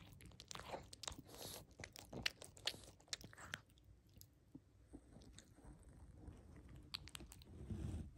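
Sleeping pug smacking its lips: a run of small, faint wet clicks for the first few seconds, a few more about seven seconds in, then a low snoring breath starting near the end.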